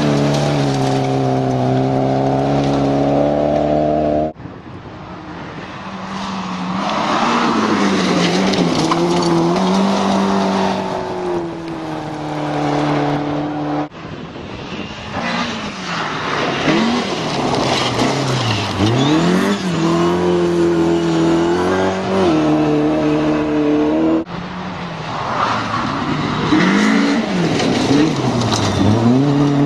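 Rally car engines revving hard, the pitch climbing through the gears and dropping on lifts, in several clips joined by abrupt cuts about every ten seconds.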